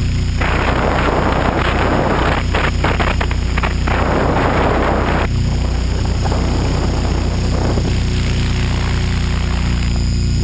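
HK600GT radio-controlled helicopter's rotor and drive running steadily, heard from the onboard camera. For the first half, a loud rush of wind over the microphone covers it, then drops away suddenly.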